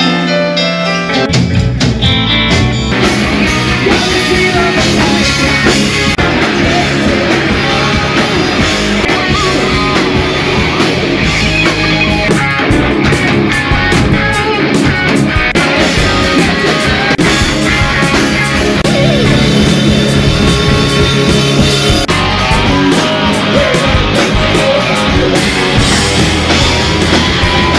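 A live hard-rock band playing loud through amplifiers: distorted electric guitars over a drum kit. A held chord opens, and the full band comes in about a second in.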